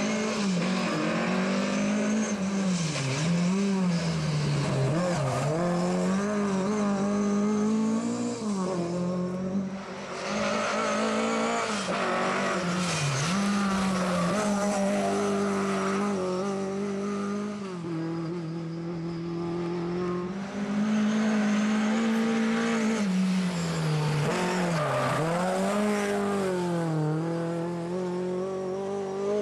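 Lada 2107 rally car's four-cylinder engine at full throttle, its note climbing through each gear and dropping sharply on lifts and gear changes, again and again.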